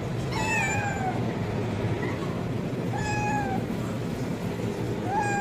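Kitten meowing loudly for food: three high-pitched meows, each falling in pitch, about two and a half seconds apart, the last near the end. A steady low rumble runs underneath.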